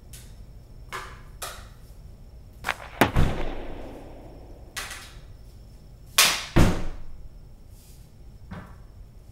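A series of sharp hockey-shot cracks and impacts. The loudest comes about three seconds in and rings on for about a second, and a loud double hit follows a little past six seconds, with lighter knocks between them.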